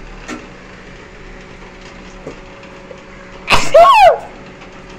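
A person sneezing once, loudly: a sudden burst that ends in a short falling vocal tone.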